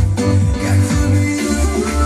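A music track with a steady, heavy bass beat, played as an audio test.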